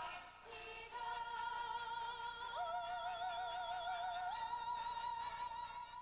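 Music with operatic-style singing: voices hold long notes with vibrato over an accompaniment. One voice slides up to a higher note about two and a half seconds in, and again near the end.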